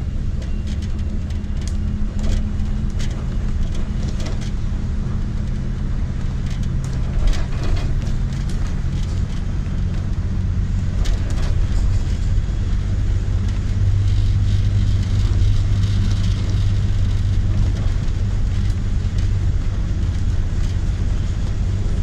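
Vintage AEC Routemaster double-decker bus on the move, heard from the upper deck: a steady diesel engine drone with scattered rattles and knocks from the body. A little past halfway the low engine note grows stronger and a bit louder.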